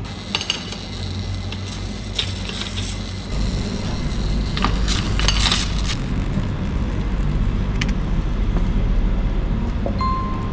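A metal ice cream scoop and spoon clink a few times against the tub. From about three seconds in, water poured from a bottle onto the hot stones of a serving pan boils off in a loud, steady rumble and crackle, sending up steam.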